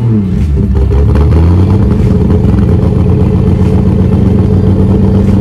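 Ford 250 crossflow straight-six running loud at the exhaust tailpipe. The revs fall over the first second or two and then settle into a steady run. It is fed by a four-barrel carburettor that is still a bit too large for the engine.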